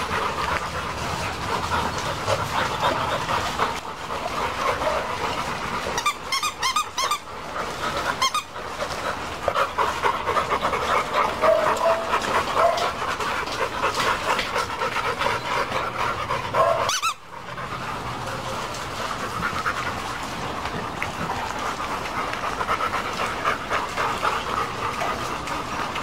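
Several Labrador retrievers panting steadily, a continuous fast breathing.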